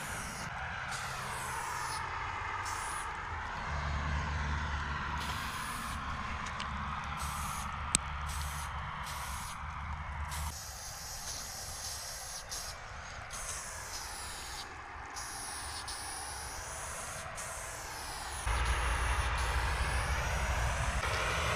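Aerosol spray paint can hissing in long continuous sprays, the hiss sweeping in tone as the nozzle moves along the wall. A low rumble joins in near the end.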